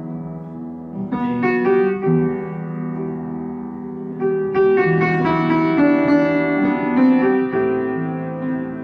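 Background music carried by piano or electric-piano notes in a gentle melody. It thickens and gets louder about a second in and again about halfway through.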